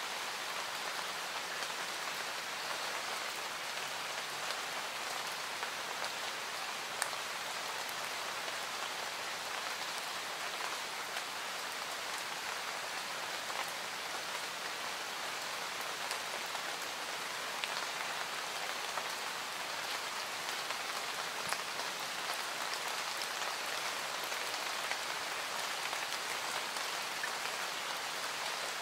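Recorded rain ambience: a steady, even hiss of rain falling, with occasional sharper single drop ticks.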